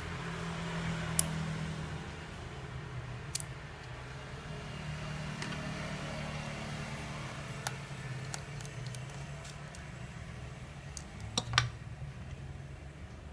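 Scattered light clicks and taps of small tools and parts being handled while an Oppo Neo 5 smartphone is taken apart, a few single clicks and a quick cluster of them near the end, over a steady low hum.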